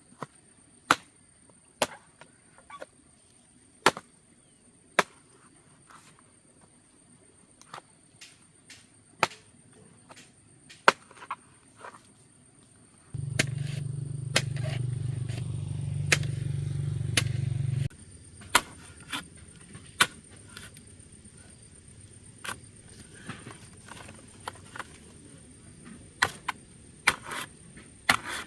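Irregular sharp knocks of a hand tool striking wood or bamboo, some loud, about one a second. A steady low hum sets in abruptly partway through and stops a few seconds later.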